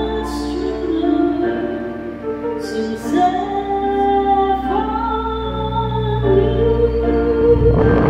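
Karaoke: a woman singing into a microphone over a backing track of sustained, organ-like keyboard chords that change about every second. Near the end a louder noisy wash comes in.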